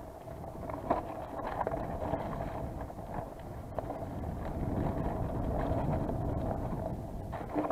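Mountain bike riding fast down a wet, rooty forest trail: wind buffeting the microphone, tyres and frame rattling over the rough ground under a steady buzzing note, with sharp knocks from bumps about a second in and near the end.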